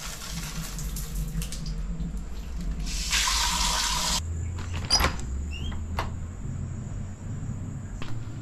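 Handheld shower head spraying water: a hiss that fades within the first second or so, then a stronger spray for about a second around three seconds in that stops abruptly. A few short knocks follow.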